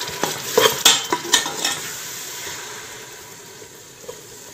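A slotted metal spoon stirring and scraping sautéing onions, tomato and green chillies in hot oil in a metal pot, with the tamarind paste just added: several clinks of spoon on pot in the first two seconds over a steady frying sizzle that slowly fades.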